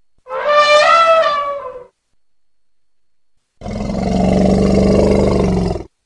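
African bush elephant calling twice: a short, high trumpet rising slightly and then falling, then about two seconds later a longer, lower roar.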